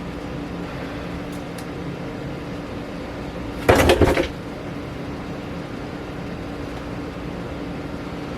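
A steady low mechanical hum, broken nearly four seconds in by a brief, loud rattling clatter.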